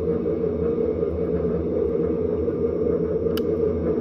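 Steady diesel-engine rumble from the onboard sound system of an Accucraft battery-powered ride-on GP40 locomotive, with a single sharp click about three and a half seconds in.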